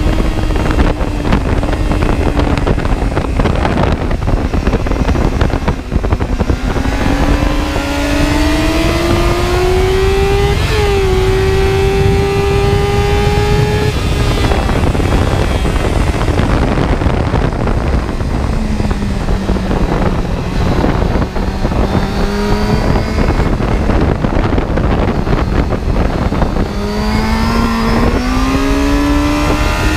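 Car engine driven hard on a circuit, its note climbing under acceleration with a quick drop at a gear change about eleven seconds in, falling away as it slows, then climbing again near the end. A heavy rumble of wind and road noise runs underneath.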